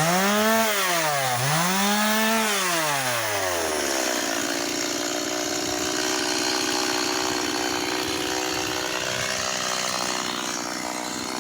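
Two-stroke chainsaw revved up twice in quick succession, the pitch rising and falling each time, then settling to a steady lower running note.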